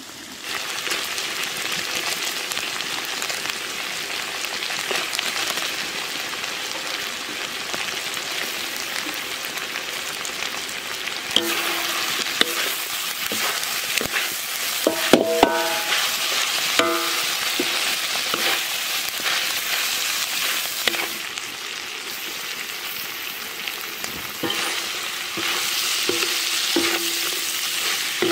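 Chicken and bell peppers sizzling in a large metal wok as they are stir-fried. A spatula scrapes and clinks against the wok, with short metallic rings, most often in the middle of the stretch.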